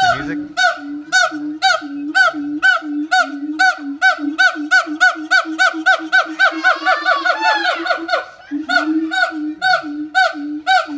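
Gibbon calling: a long series of loud, evenly spaced hoots, about three a second. Around the middle they speed up into a quicker run of rising notes, break off briefly, then carry on at the steady pace.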